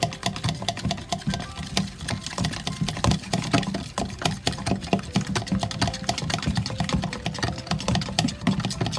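Metal fork beating a thick flour batter in a plastic tub, with rapid, uneven clicking as the fork strikes the sides and bottom of the tub.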